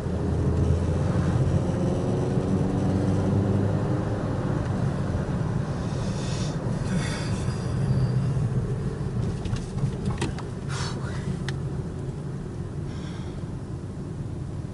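Car driving, heard from inside the cabin: a steady low rumble of engine and road noise, with a few short clicks around the middle.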